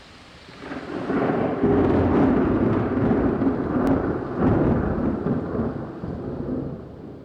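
A long rumble of thunder over a hiss like rain, swelling in over about a second, holding, then fading away near the end.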